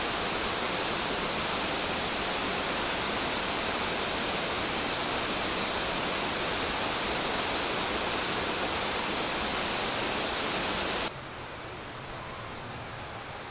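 Steady rush of mountain-gorge water, falling and flowing over rock. About eleven seconds in it drops suddenly to a softer, quieter rush.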